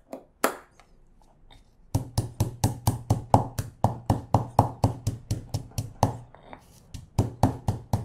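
Stone pestle pounding in a Thai stone mortar (krok and saak), crushing white peppercorns with galangal and lemongrass. A couple of separate knocks, then from about two seconds in a fast, even run of strikes, about six a second, with a short pause near the end.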